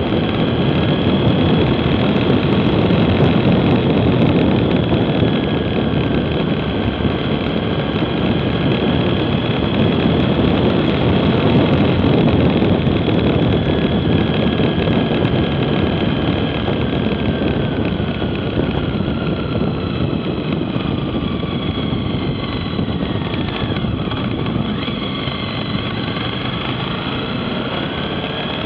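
Motorcycle engine running at road speed under a steady rush of wind and road noise. Its pitch sags and then climbs again in the last third.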